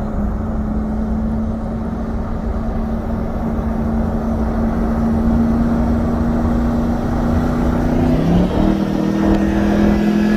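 Road and tyre rumble inside a Tesla Model S Plaid cruising at low speed, with a steady hum under it; about eight seconds in the hum's pitch shifts and a second, higher hum joins it.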